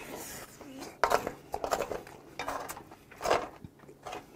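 Wooden spoon scraping and scooping fried rice in a metal frying pan: several short, irregular scrapes and knocks.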